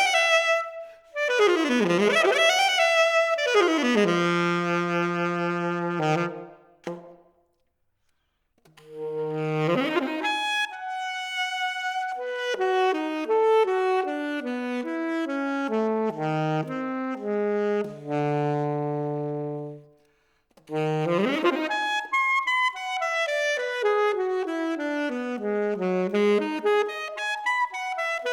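Solo saxophone playing fast jazz-style runs that sweep up and down, with held low notes. It breaks off briefly twice, about seven seconds in and again near twenty seconds.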